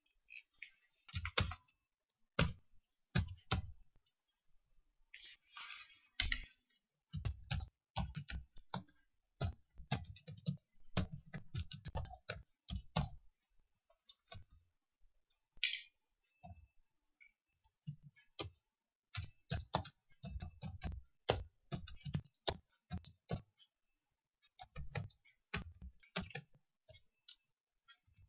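Computer keyboard being typed on: quick key clicks in uneven bursts, with pauses of a second or two between them.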